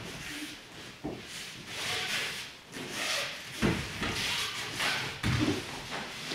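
Aikido training uniforms swishing and rustling during an ikkyo wrist-grab technique. A heavy thump about three and a half seconds in as the partner is taken face-down onto the foam mats, and another thump about a second and a half later as she is pinned.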